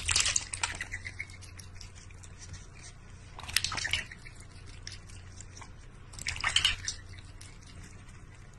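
Water splashing and dripping in a stainless steel bowl as a cat paws at it, in three short bursts a few seconds apart.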